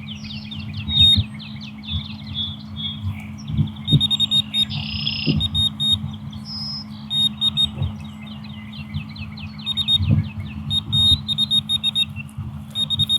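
Electronic carp bite alarm beeping in rapid runs of short, high beeps as line is pulled off the rod: a fish has taken the bait. A steady low hum runs underneath.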